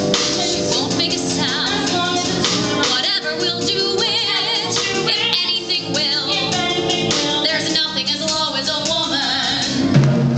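Show-tune duet music: a female voice singing held, wavering notes with vibrato over instrumental accompaniment, with a fuller band chord coming in near the end.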